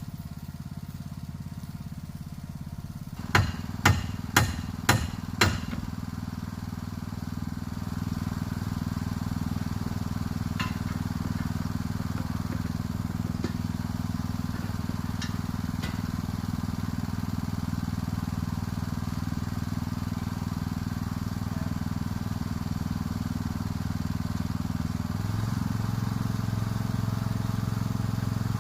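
An engine running steadily, getting a little louder twice. Five sharp knocks come about half a second apart a few seconds in.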